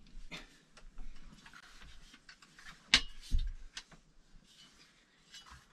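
Faint clicks and small knocks of a metal TV wall bracket being handled and held against a wooden wardrobe, with one sharper click about three seconds in and a dull thump just after.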